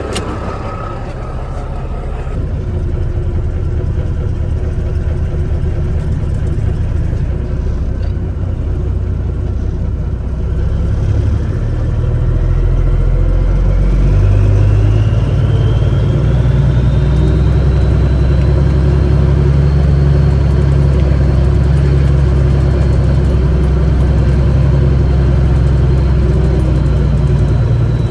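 Heavy diesel engine running steadily. A high whine rises over several seconds about a third of the way in, then holds at one pitch.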